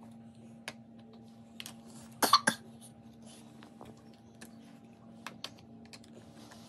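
Large plastic toy building blocks clicking and knocking together as a toddler handles and stacks them: scattered light clicks and a louder short burst just after two seconds in, over a faint steady hum.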